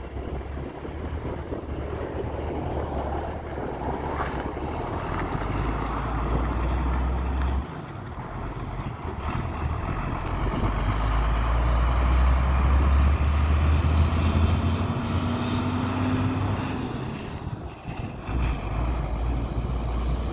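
1990 International flatbed truck's engine pulling away and driving off. The engine note drops sharply about eight seconds in, then builds again and is loudest a few seconds later.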